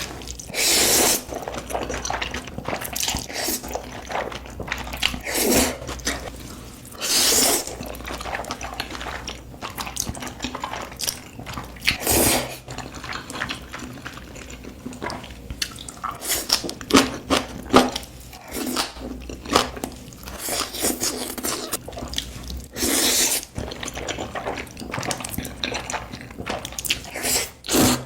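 Close-miked eating of jjajangmyeon noodles: wet chewing and mouth clicks throughout, broken by about five louder noisy stretches that fit noodles being slurped in big mouthfuls.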